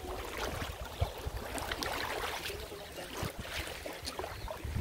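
Shallow lake water lapping and splashing at a sandy shore, with small irregular splashes, over a low steady rumble.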